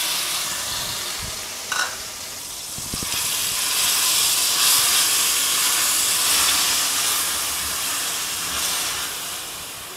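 Grated onion sizzling as it fries in hot ghee in a stainless steel pan while it is stirred, with one brief knock about two seconds in. The sizzle grows louder after about three seconds and fades near the end.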